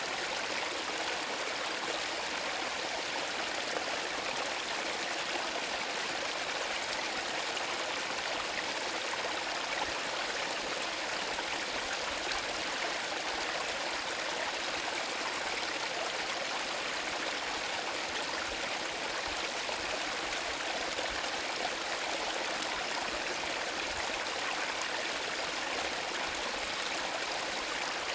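Small forest brook trickling and splashing over stones in a steady, unbroken flow.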